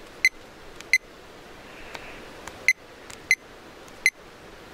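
Handheld digital weather-station thermometer beeping as its buttons are pressed: five short high electronic beeps at irregular intervals.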